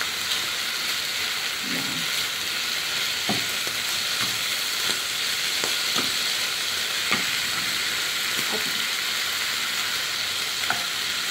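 Chicken tenders, carrots and celery sizzling in a hot nonstick wok while a spatula stirs and tosses them, a steady hiss with a short scrape or knock of the spatula about once a second.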